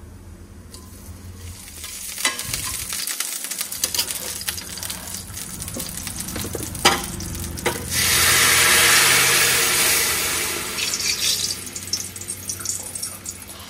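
Garlic and whole spices sizzling and crackling in hot oil in a kadai, with scattered sharp pops. About eight seconds in, a loud hiss surges for about two seconds as cooked yellow dal is poured into the hot oil, then it settles back to a lower sizzle.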